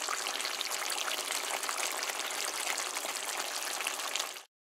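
Goat curry bubbling and sizzling in its pot, a steady crackling hiss that cuts off abruptly near the end.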